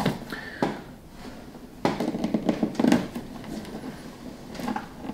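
Shrink-wrap plastic on a cardboard box being cut with scissors and pulled at by hand: a series of short snips, crinkles and taps, busiest about two to three seconds in.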